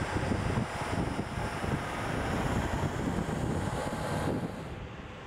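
Wind buffeting the microphone, with the low rumble of farm tractors driving across the sand. The hiss thins out about four seconds in.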